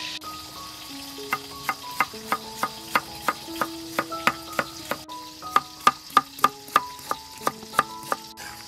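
Knife slicing a cucumber on a wooden cutting board: sharp, evenly paced chops, about three a second, starting a little over a second in, over background music with a melody.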